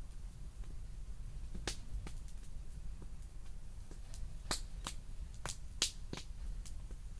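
Campfire wood crackling, with irregular sharp pops and snaps, the loudest about halfway through and again near the end, over a low steady rumble.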